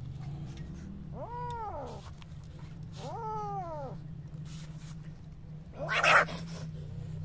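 Young kitten meowing twice in distress while caught in netting, each call about a second long, rising then falling in pitch. About six seconds in comes a short loud noisy burst, the loudest sound.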